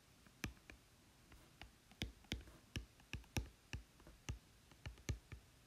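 Apple Pencil tip tapping on an iPad's glass screen while handwriting words: an irregular run of light clicks, about two or three a second.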